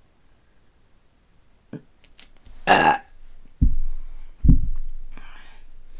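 A woman burping after gulping soda: a short, noisy burst about two and a half seconds in, then two low belches about a second apart that trail off, followed by a breathy exhale.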